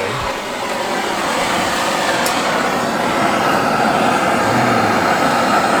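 Gas burner running with a steady rushing hiss under a cast iron pot of water, heating it to test an outboard thermostat. It comes on suddenly and grows slightly louder.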